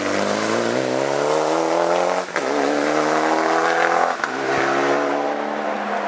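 Mitsubishi Lancer Evolution rally car's turbocharged four-cylinder engine accelerating hard away from a hairpin. The engine note climbs in each gear, with two quick upshifts about two and four seconds in, and is steadier after the second one.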